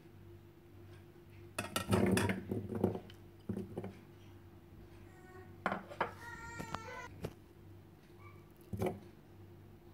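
Chopped vegetables and minced meat tipped into a stainless steel pot, with a clatter of the plate and utensils against the pot about two seconds in and a few lighter knocks after. About six seconds in, a short high-pitched call is heard.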